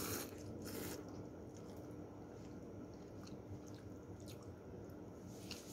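A person slurping instant tom yam noodles, two short slurps in the first second, then faint chewing with small clicks.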